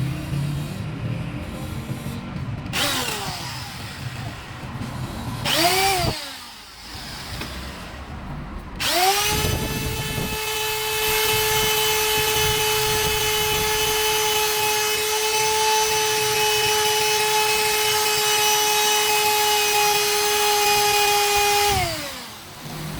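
An electric power tool motor switched on briefly twice, then run up to speed about nine seconds in, holding a steady high whine for about thirteen seconds before winding down near the end.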